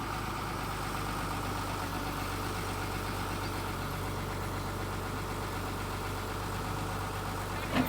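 Tata Hitachi 200-class excavator's diesel engine running steadily at low speed, with a brief knock near the end.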